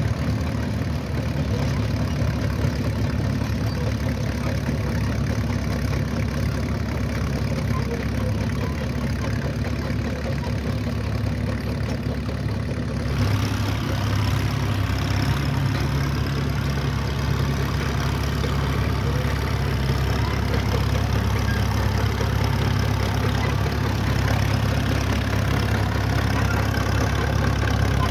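Engine of an antique road grader running steadily at a low, even speed, with a change in the sound about halfway through as more high-pitched clatter and noise join the low engine drone.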